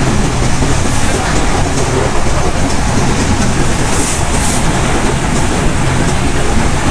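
Passenger train running at speed, heard from on board: a loud, steady rumble and rushing noise of the moving coaches, with a brief hiss about four seconds in.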